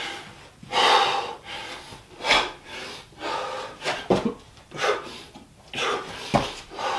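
A man breathing hard from the exertion of burpees: heavy, noisy breaths about one a second. About four seconds in and again near the end there is a dull thump, from hands or feet landing on the floor.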